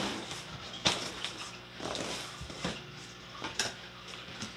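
Cardboard box flaps and a paper sheet being handled and pushed open: a few light knocks and scrapes with soft rustling between, over a steady low hum.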